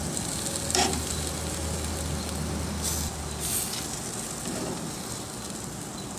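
Chicken pieces sizzling on a gas grill's grates, with a sharp clack of metal tongs against the grate about a second in and a few lighter clicks as the pieces are turned.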